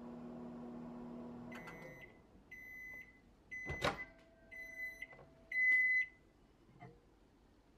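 Microwave oven running with a steady hum that stops as its timer runs out about two seconds in. It then beeps five times, about once a second, to signal that the 30-second heating cycle is done. A sharp click of the door latch comes near the middle as the door is opened.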